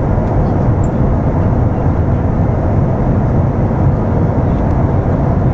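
Airliner cabin noise in flight: the engines and rushing air make a loud, steady, even noise, heaviest in the low range.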